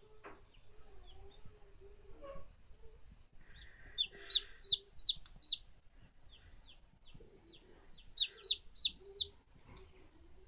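Hatching 청계 (green-egg chicken) chick peeping: a run of about five loud, falling peeps about four seconds in, softer peeps after, and another run of four near the end.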